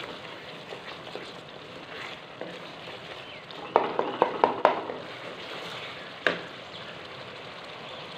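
Tomato-and-spice masala sizzling as it fries in a metal karahi over a turned-up gas flame, stirred with a wooden spoon. A little under four seconds in comes a quick run of about five knocks of the spoon against the pan, then one more knock about two seconds later.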